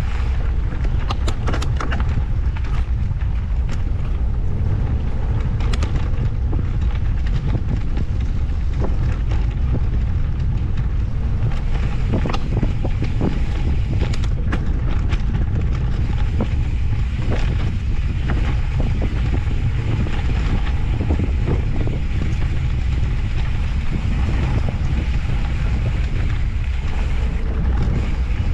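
Wind buffeting the camera microphone as an off-road handcycle rolls along a dirt trail, with a steady low rumble and scattered clicks and rattles from the bike over the ground.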